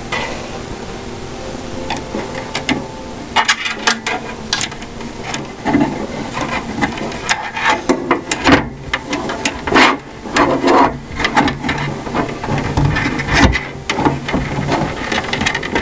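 Computer case fans and case hardware being handled and fitted into the top of a PC case: irregular clicks, knocks and scraping of plastic and metal, getting busier a few seconds in.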